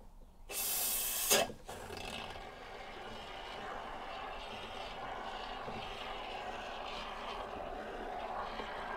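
Aerosol can of expanding spray foam being sprayed: a loud hiss starts about half a second in and cuts off after about a second, followed by a quieter, steady sputtering hiss as foam is fed into the holes.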